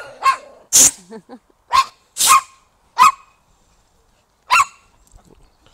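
Pomeranian barking at another dog, about seven short, high-pitched barks at irregular intervals. It is reactive barking that carries on after the other dog has gone.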